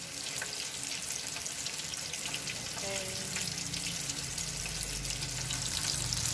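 Food frying in a pan, a steady crackling sizzle.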